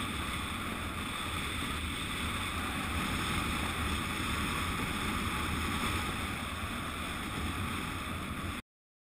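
Wind rushing over a helmet-mounted camera's microphone during a parachute descent under an open canopy, a steady rush that cuts off suddenly near the end.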